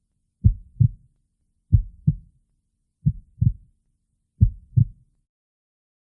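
Heartbeat sound effect: four double low thumps, lub-dub, one pair about every 1.3 seconds.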